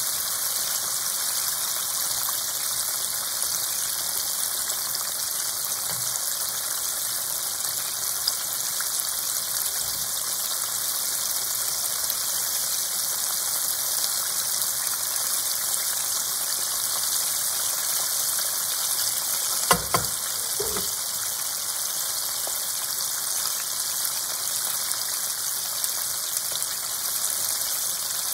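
Breaded chicken pieces deep-frying in hot oil: a steady bubbling sizzle, with two sharp clicks a little past the two-thirds mark.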